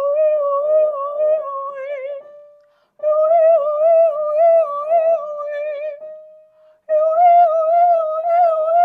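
A woman's voice singing a vocal warm-up exercise: three phrases of quick, wavering notes in a fairly high register, with short breaths between them, each phrase set a little higher than the last.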